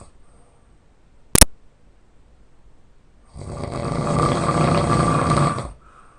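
A person snoring loudly: one long snore of about two and a half seconds in the second half. A single sharp click, the loudest sound here, comes about a second and a half in.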